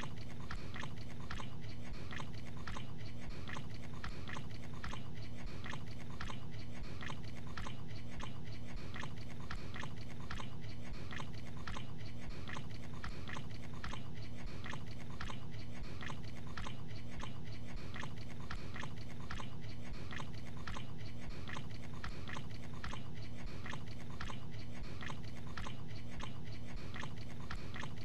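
A man chewing a mouthful of gabagool (capicola, a cured pork cold cut) close to the microphone, the chews repeating in an even rhythm over a steady low hum.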